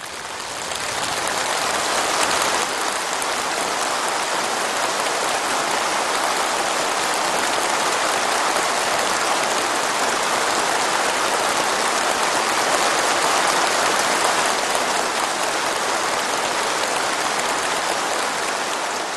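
Sustained applause from a very large crowd of delegates, swelling in over the first second, holding steady, and dying away near the end.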